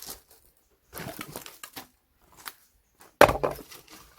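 Firewood being split with an axe. Wood cracks and splinters about a second in, then near the end comes one loud, sharp blow as the axe strikes and splits a log.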